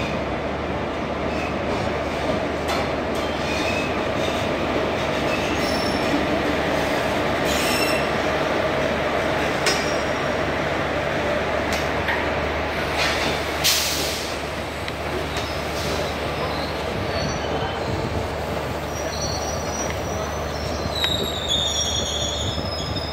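Passenger train of Indian Railways coaches running through a station behind an electric locomotive: a steady rumble of wheels on rail, with a few sharp knocks and brief high squeals near the end.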